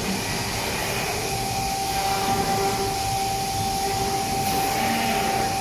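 Factory machinery running in an industrial robot cell for furniture panels: an even hiss and hum, with a steady high whine that joins about a second in.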